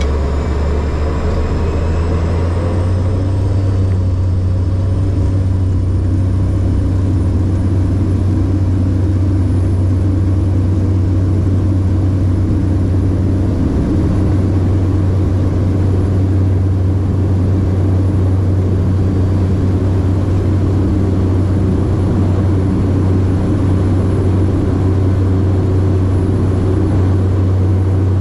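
Cessna 208 Grand Caravan's PT6A turboprop engine and propeller at takeoff power, heard from inside the cabin during the takeoff roll and lift-off. A loud, steady, deep propeller drone runs under a high turbine whine that rises in pitch over the first few seconds, then holds steady.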